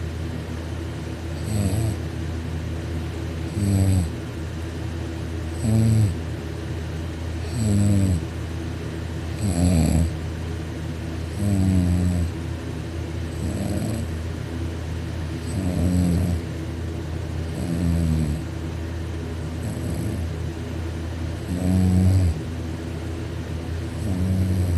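A sleeping man snoring loudly, about one snore every two seconds, each a buzzing flutter of the soft palate, over a steady low hum.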